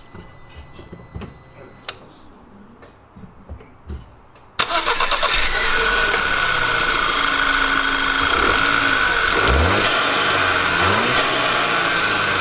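Volkswagen Tiguan's 2.0 TSI turbocharged four-cylinder engine, breathing through an open cone-filter cold air intake, starting up about four and a half seconds in and then idling steadily, with a brief rise in revs later on.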